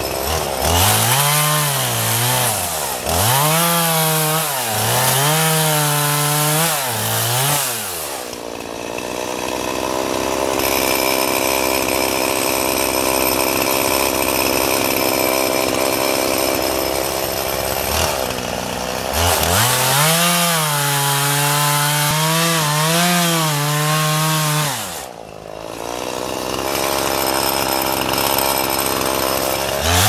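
Gas chainsaw cutting into a large pine trunk. The engine pitch rises and falls repeatedly as it revs and bogs under load, in two spells of cutting with a steadier running stretch between them.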